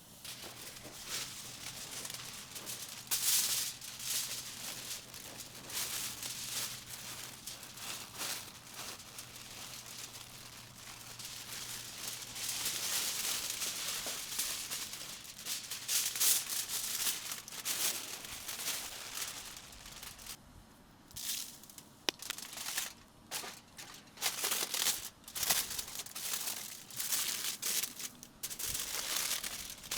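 Irregular rustling and crinkling, with a faint steady low hum that stops about a dozen seconds in.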